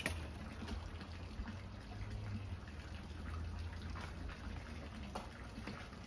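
Water spraying from a garden hose spray wand, splashing and dripping as it is hosed into a bird house to drown a wasp nest.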